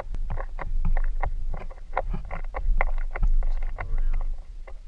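Irregular small clicks and taps of a replacement fuel quantity valve and its bolts being handled and fitted by hand against a diesel engine block, several strokes a second, over a steady low rumble.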